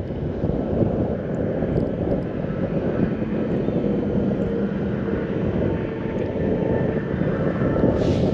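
Steady wind rumble on the microphone, with a faint engine drone that comes in over it in the middle and fades near the end.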